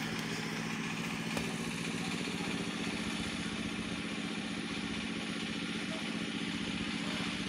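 An engine idling steadily with an even, rapid pulse.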